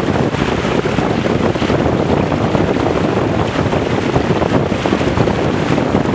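Wind buffeting the microphone over the steady rush of water and spray along a Weta trimaran's hull sailing at speed.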